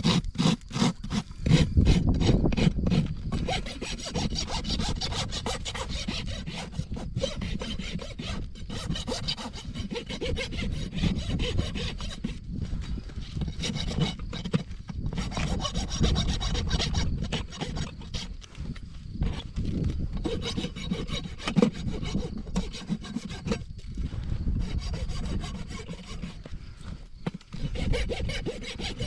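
Hoof rasp worked in repeated scraping strokes across a horse's hind hoof, quick short strokes at first and then longer ones, filing down the hoof wall during a barefoot trim.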